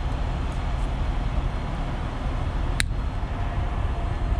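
Truck engine idling steadily, a low rumble, with one sharp click a little under three seconds in.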